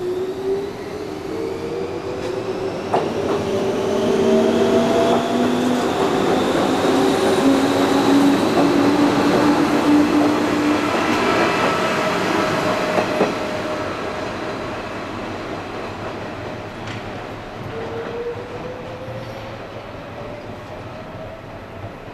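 JR 419 series electric multiple unit pulling out and accelerating past. Its motor whine climbs steadily in pitch, with a few sharp clicks of wheels over rail joints. It grows loudest in the middle, then fades as the train moves away.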